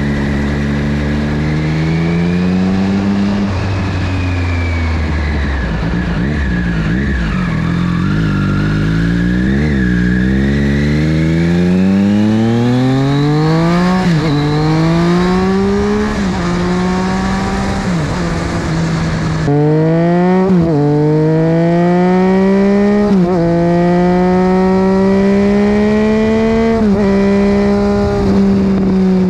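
Triumph Street Triple's inline three-cylinder engine pulling on the road, heard from low beside the front wheel with wind and tyre noise. Its pitch falls away early on. In the second half it climbs and drops sharply again and again as the rider accelerates and shifts up through the gears.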